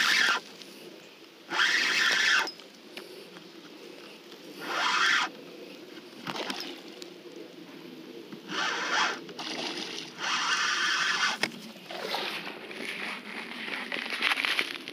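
Fishing reel whirring in several separate bursts of about a second each while a hooked peacock bass is being fought.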